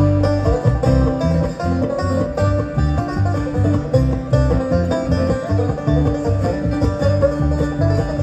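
Live amplified bluegrass band playing an instrumental intro: banjo, mandolin, acoustic guitar and electric bass over a steady bass pulse, with no singing yet.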